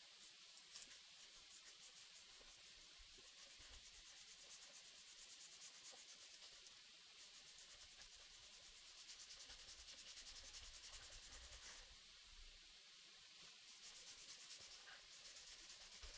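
Sandpaper being rubbed by hand over a black-dyed curly maple knife handle: faint, quick, even back-and-forth sanding strokes with a few short pauses.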